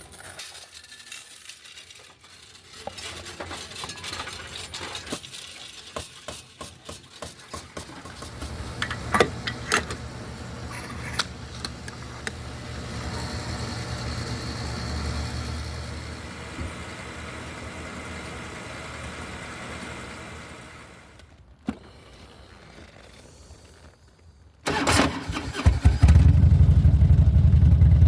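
Scattered clicks and clatter, then a Harley-Davidson trike's V-twin engine starts near the end and settles into a loud, steady idle.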